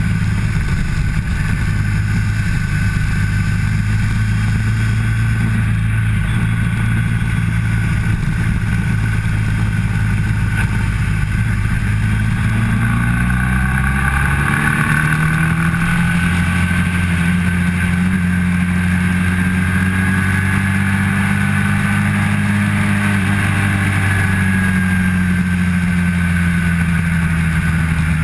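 Motorcycle engine running hard at track speed. Its note holds steady, then changes pitch about halfway through and settles again.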